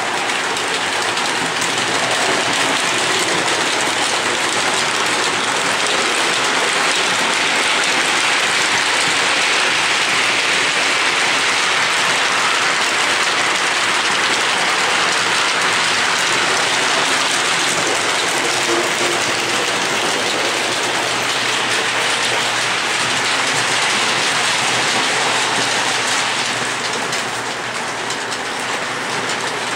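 Lionel O27 model trains running on three-rail tubular steel track: a steady rolling rattle of wheels on the rails, easing off slightly for a moment near the end.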